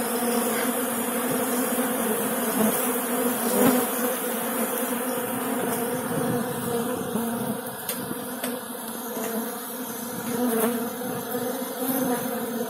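Dense, steady buzzing of a mass of honeybees swarming at a hive entrance during robbing: bees of a strong colony raiding a weak hive to take its honey. The drone eases a little about halfway through.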